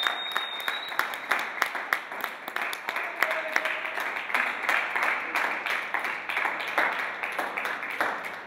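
Audience applauding, many irregular claps that thin out and grow quieter toward the end.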